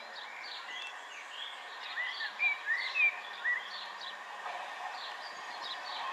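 Songbirds chirping in quick short calls, loudest about two to three and a half seconds in, over a steady outdoor hiss. The low running sound of an approaching Class 465 Networker electric train grows under them toward the end.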